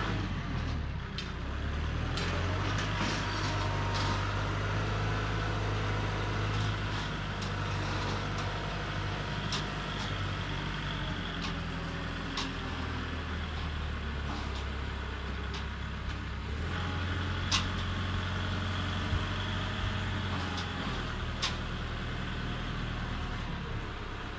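Kubota M5660SU tractor's diesel engine running steadily as it drives across the field with its loader forks raised, with a few sharp knocks and clanks along the way.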